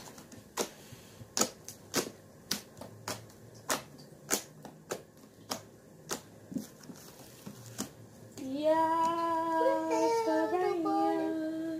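Scissors snipping through hair braids, a sharp snip roughly every half second. From about eight seconds in, a girl sings a few held notes over it.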